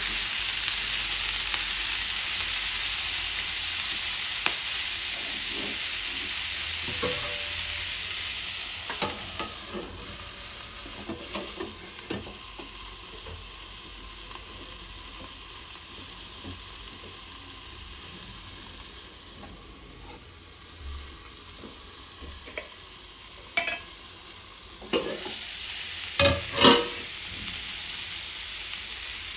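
Broccoli and red onion sizzling in a frying pan as a spatula stirs them. About ten seconds in the sizzle drops to a quieter hiss once a steel plate covers the pan. Near the end there are several sharp metal clinks as the plate is lifted off and the sizzle grows louder again.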